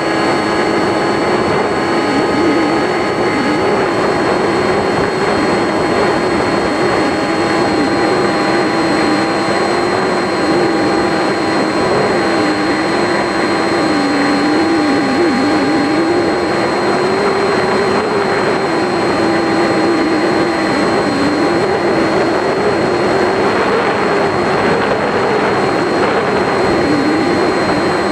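RC plane's motor and propeller heard from on board in flight, a loud steady drone whose pitch wavers up and down, over a rushing noise.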